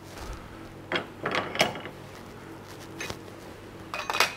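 Metal lathe work: a few short metallic scraping and clattering bursts as a part's corner is broken, over the lathe's steady low hum.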